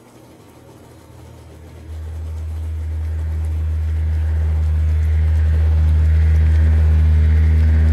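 A deep, steady drone cuts in about two seconds in and swells louder. A second, higher tone joins it shortly after, and a hiss builds on top toward the end.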